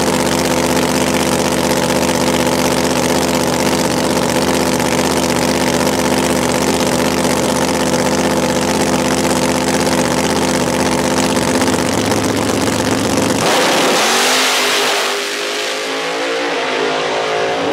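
Top Sportsman drag car engine running steadily at the starting line, then launching about thirteen seconds in with a sudden burst of noise, its note climbing as it accelerates away.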